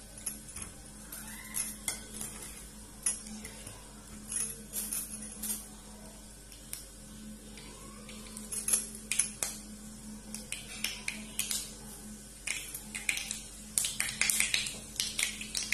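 Mustard seeds crackling and popping in hot mustard oil in a kadai: scattered sharp pops that come quicker and denser near the end, as the seeds splutter for tempering. A steady low hum runs underneath.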